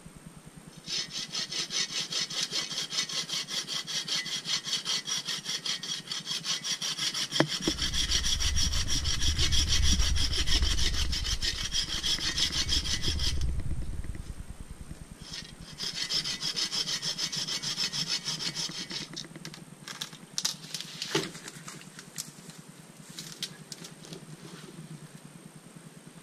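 Hand saw cutting through the hard, bone-dry trunk of a dead standing tree in fast, steady strokes, with a low rumble under the middle of the first long run of sawing. About two seconds' pause comes before a shorter second run. Once the sawing stops, a few sharp cracks and snaps follow as the tree comes down.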